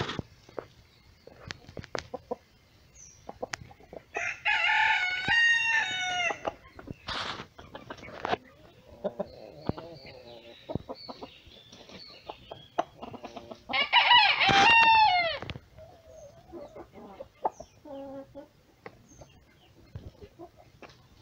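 Two rooster crows, each about two seconds long, one about four seconds in and the other about ten seconds later. Between them, hens cluck and there are short scattered clicks.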